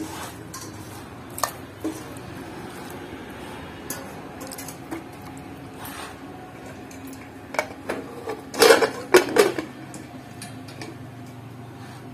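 Aluminium pressure cooker and steel bowl clattering as pieces of mutton are put in and the lid is fitted. There are scattered knocks, then a burst of loud metal clanks between about eight and ten seconds in.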